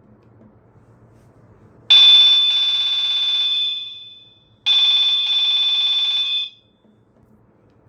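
Nokia 3220 mobile phone ringtone: two long, high, rapidly pulsing electronic alarm-like tones. The first comes in about two seconds in and fades out; the second follows a moment later and cuts off suddenly.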